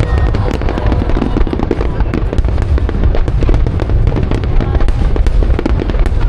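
Fireworks display going off in rapid succession: a dense crackle of many small bursts over a continuous low rumble.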